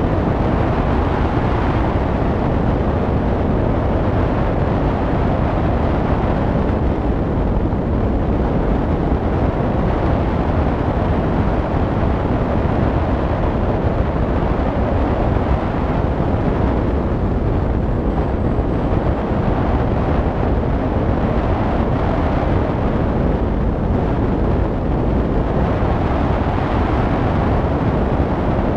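Steady, loud rush of wind over the microphone of a camera mounted on a hang glider's wing in flight.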